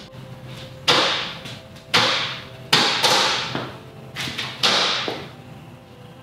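About four sharp knocks, each dying away over about a second, as the platform cart is handled and set down to be weighed.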